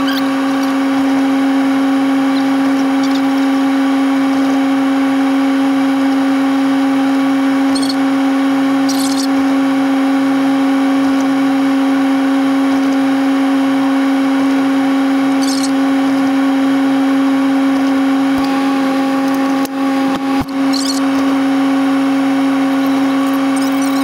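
Steady droning hum inside a vehicle cab, a strong even tone with its overtones. A few faint brief high ticks come through, and the hum dips briefly near the end.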